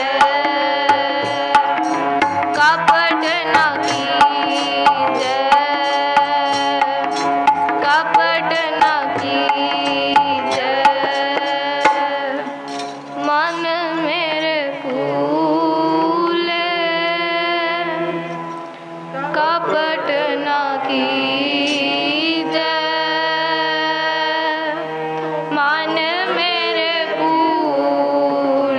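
Gurbani kirtan: a woman singing a hymn to harmonium, with tabla strokes in a steady rhythm for about the first twelve seconds. After the tabla stops, the voice and the sustained harmonium chords carry on.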